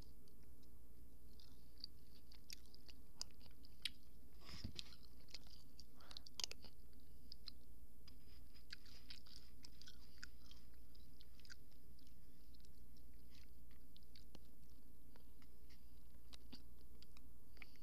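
A small poodle eating food from a spoon: irregular, wet chewing and smacking clicks, busiest a few seconds in, over a steady low hum.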